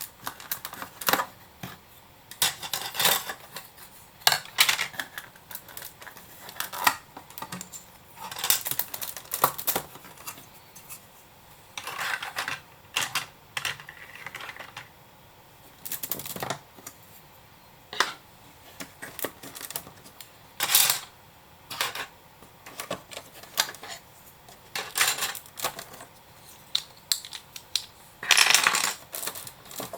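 Lego bricks and small computer parts being pulled apart and set down by hand: irregular clicks, snaps and clattering, in short bursts with pauses between.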